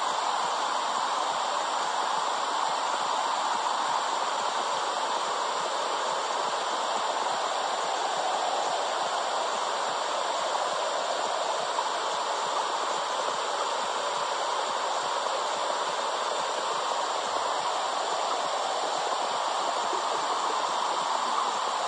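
Womb sound played to soothe babies: a steady, even whooshing hiss with no heartbeat or other beat in it.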